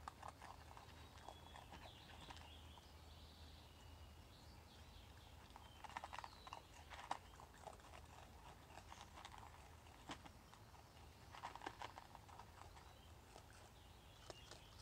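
Faint clicks and crunches of a raccoon eating from a plastic tub, coming in a few short clusters with a couple of sharper single clicks between them.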